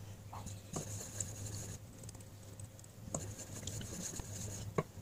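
Wooden spoon stirring water with sugar and agar agar in a stainless steel pot, scraping in two spells of soft scratchy hiss, with a few light knocks.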